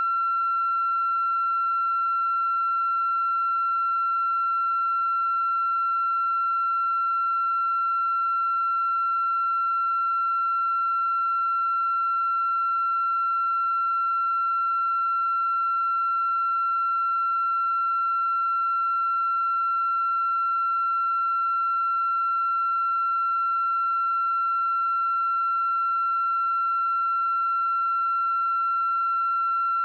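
A steady, unbroken high-pitched electronic tone at one pitch, with fainter overtones above it.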